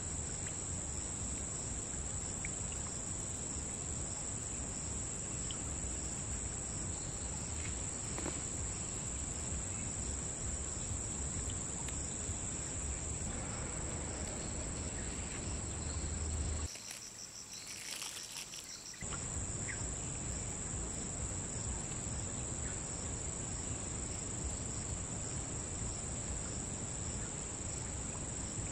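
Insects singing in a steady, high-pitched drone over a low rumble. About two-thirds of the way through, the sound briefly gives way for a couple of seconds to a thinner, pulsing insect sound before the drone returns.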